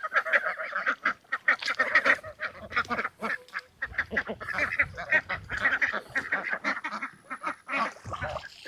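A flock of domestic ducks quacking in rapid, overlapping calls, with geese among them, without a break.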